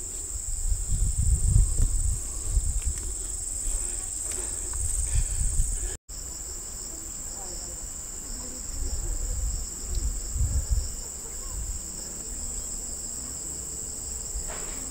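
A chorus of tropical insects giving a steady high-pitched buzzing trill, joined by a second, pulsing insect call partway through. Irregular low rumbles come and go, and the sound cuts out for an instant about six seconds in.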